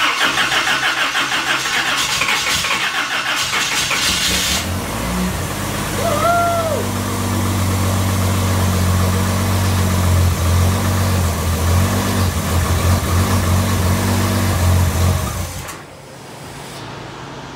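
Freshly built, turbocharged GM Vortec 4200 inline-six on its first start after oil priming. The starter cranks in a steady rhythm for about four and a half seconds, then the engine catches and idles steadily for about eleven seconds before it is shut off abruptly.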